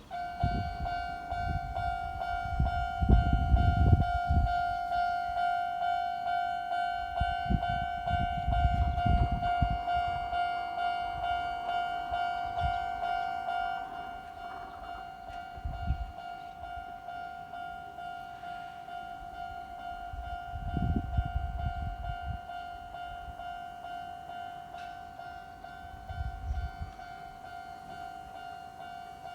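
Japanese level-crossing warning bell ringing steadily. Bouts of low rumble from a train passing the crossing are louder in the first half and die down after about fourteen seconds, with a few shorter ones later.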